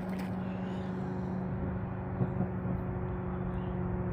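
A steady low mechanical hum holding a constant pitch, of the kind a running engine or distant traffic makes, with one brief soft bump about two seconds in.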